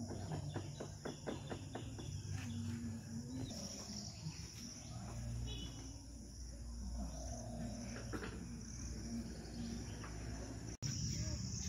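Insects trilling steadily in the background, with a quick run of sharp clicks in the first two seconds and a faint low rumble underneath.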